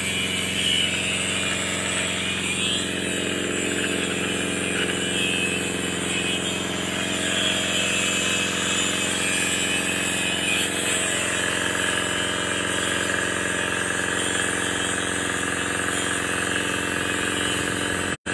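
Crawler excavator's diesel engine idling at a steady speed. It breaks off suddenly right at the end.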